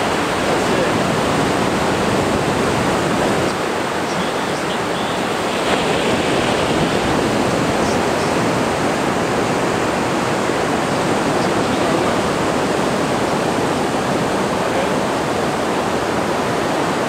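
Ocean surf breaking and washing in, a steady, loud rushing noise with no distinct crashes.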